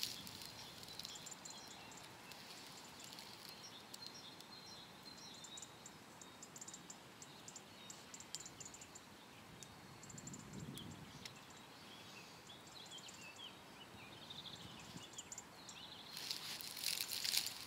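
Quiet outdoor ambience with faint small birds chirping and twittering in short notes throughout. Light rustling of dry vegetation swells near the end.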